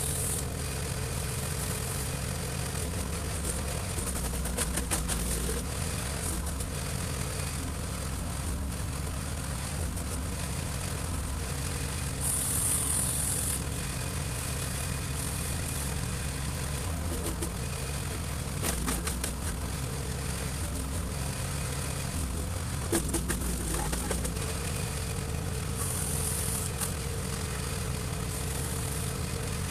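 Garden shredder with a cutting drum running steadily while viburnum branches are fed down its chute, with crackling as the wood is chewed and two brief louder surges, about twelve seconds in and near the end.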